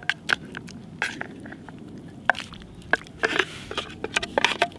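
Metal fork scraping and clinking against a fish tin and a metal pot while scooping tinned fish in tomato sauce into noodles: a string of irregular clicks and short scrapes, busiest in the last second and a half.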